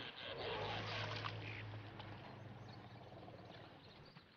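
Water splashing and trickling at a waterhole as animals drink, with a low steady hum under it; the sound fades gradually and is faint by the end.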